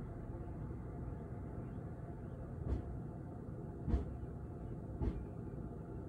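Steady low rumble of distant city traffic heard from high above the city, with three soft thumps less than a second apart to about a second apart, near the middle and later part.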